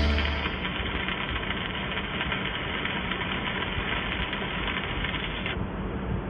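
Steady hiss of a DC stick-welding arc struck with a Memco Invertech 400 A inverter welder, with a few faint sharp ticks, after background music fades out in the first half second.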